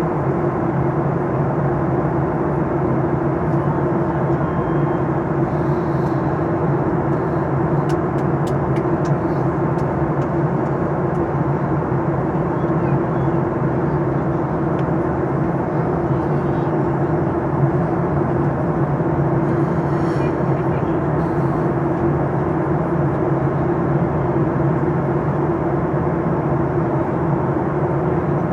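Steady cabin noise of a Boeing 737-800 in flight: the engines and the airflow around the fuselage make an even drone with a constant low hum.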